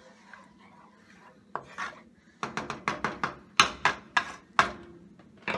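A wooden spatula scrapes around the sides of a metal sauté pan of thick spinach sauce. About ten quick strokes start about a second and a half in, and one last stroke comes near the end.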